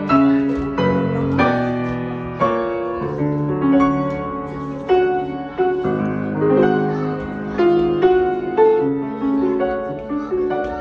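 Background piano music: notes and chords struck one after another, each ringing on and fading.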